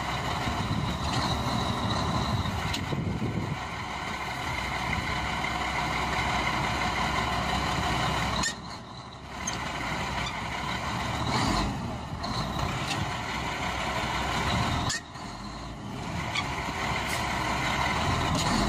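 Diesel engine of a semi-truck tractor unit running hard under throttle while the truck is stuck in mud, with a steady whine on top. The engine drops off suddenly twice, about a third of the way in and again past the middle, then picks back up.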